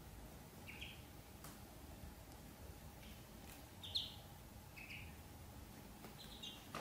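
Ducklings peeping: about five short, high cheeps scattered through, the loudest about four seconds in.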